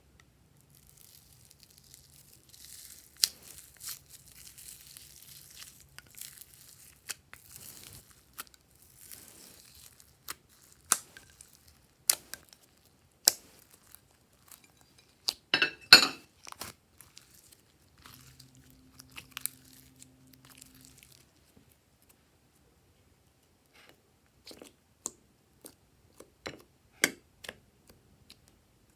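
Crinkling and tearing handling noises with many sharp clicks and taps, as makeup and glitter packaging is opened and handled. About halfway through comes a loud cluster of crackling clicks, and scattered single clicks follow near the end.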